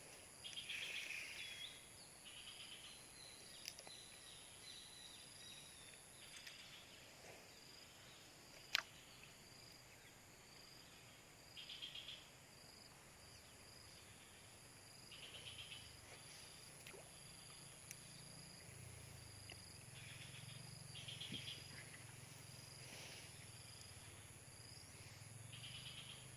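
Insects chirping outdoors: short trilling bursts every few seconds over a steady high-pitched drone, with a single sharp click about nine seconds in and a low hum joining in the second half.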